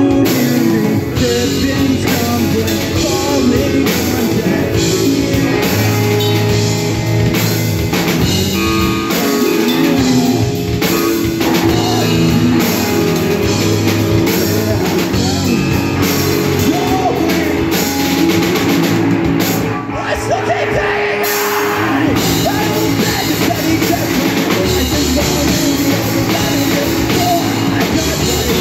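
Live rock band playing: electric guitar, bass guitar and drum kit with sung vocals. The band briefly drops back about two-thirds of the way through, then comes back in at full strength.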